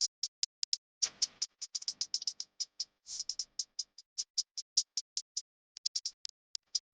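Batter cooking in a hot nonstick mould pan, crackling with quick, irregular pops, several a second, and a few louder bursts of sizzle about a second in and near the three-second mark.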